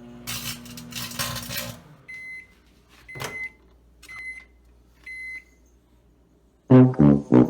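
Microwave oven running with a steady hum, then four short high beeps about a second apart, the end-of-cycle signal. Loud music comes in near the end.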